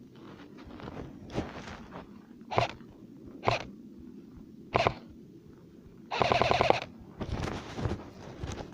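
Airsoft gun firing: four short bursts of shots about a second apart, then a longer burst of rapid full-auto fire about six seconds in, followed by a few weaker shots.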